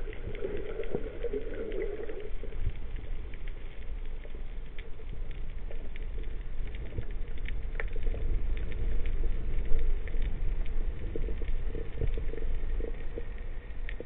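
Underwater ambience picked up by a camera in a housing on a breath-hold spearfishing dive: a steady low rumble of water with scattered small clicks and crackles, and a brief burbling in the first two seconds.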